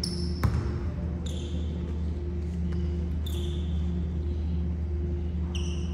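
A basketball bounces once on a hardwood gym floor about half a second in, followed by a few short sneaker squeaks on the court, over a steady low hum.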